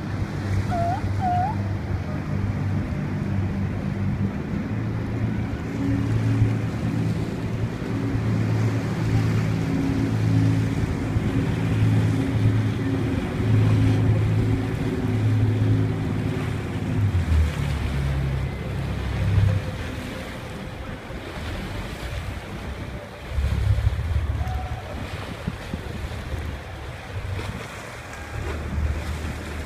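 Wind rumbling and buffeting on the microphone over the wash of water and waves. The heavy low rumble eases off about two-thirds of the way in, and there are two short chirps near the start.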